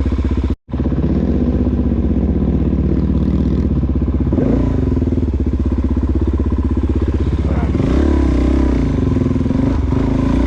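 A supermoto's engine running at low revs, its pitch rising and falling with the throttle a couple of times. The sound cuts out for an instant about half a second in.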